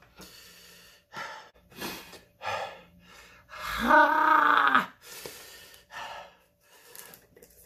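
A man breathing hard in and out through an open mouth against the burn of very spicy noodles, several short breaths. About four seconds in comes one loud drawn-out groan whose pitch rises and then falls.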